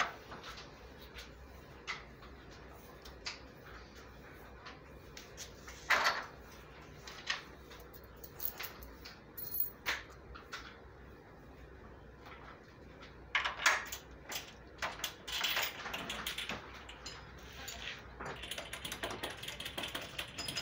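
Scattered clinks and knocks of small metal bolts, nuts and washers being handled while a bench vise is bolted down, with a run of quick rattling near the end.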